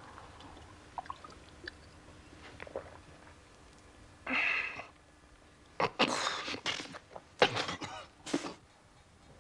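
A man swallows a drink with a few small glass and gulping clicks, then lets out a loud gasp about four seconds in, followed by a run of sharp, breathy splutters and coughs: his reaction to a fiery hangover pick-me-up.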